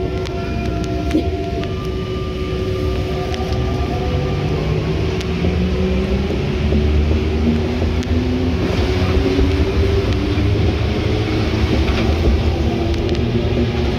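Inside a rubber-tyred MP89 CC Paris Métro train pulling away from a station. The traction motor whine glides upward in pitch as the train accelerates, over a steady rumble of the running gear. From about the middle on, a train passing the other way adds a rushing noise.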